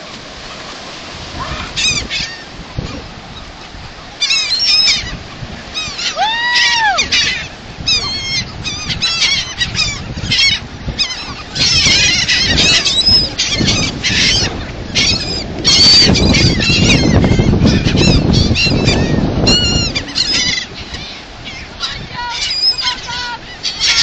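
A flock of gulls calling over one another in many short, high, squealing calls, thickest through the middle. A loud low rush of noise lies under the calls for several seconds in the middle.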